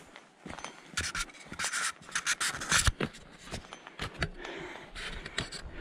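Irregular rustling and scraping with a few sharp scuffs, loudest about a second in, as a walker moves along a hill path.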